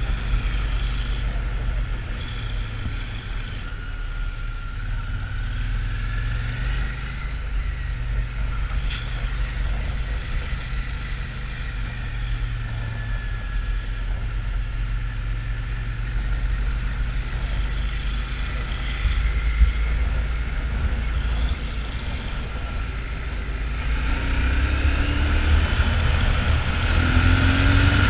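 Royal Enfield Shotgun 650's parallel-twin engine running while being ridden, a steady low rumble; the revs rise near the end.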